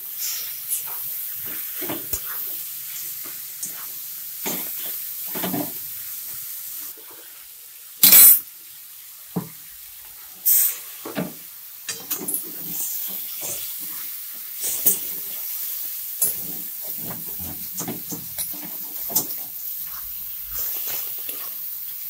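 A spatula stirring and scraping boiled cabbage through spiced oil and masala in a metal wok, over a steady sizzle of frying. There are many short scrapes, and a few louder clatters against the pan, the loudest about eight seconds in and another about two seconds later.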